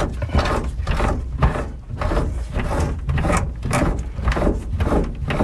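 Mechanical rotary steering helm being turned by hand, its gear drawing a new outboard steering cable in, with a run of clicking, scraping strokes a few times a second.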